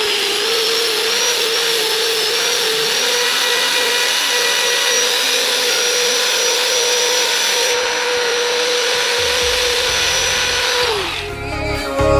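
Electric angle grinder fitted with a sanding disc, running steadily with a high motor whine while a small PVC part is sanded on it. About 11 s in, its pitch falls as the motor spins down, and music begins.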